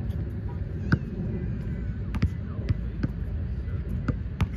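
Underinflated basketball bouncing on an outdoor court surface, a string of irregular sharp thuds about one to two a second over a steady low background rumble.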